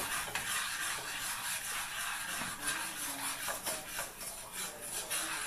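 A spoon stirring melting chocolate, butter and golden syrup in a saucepan, with soft, irregular scraping strokes over a steady hiss.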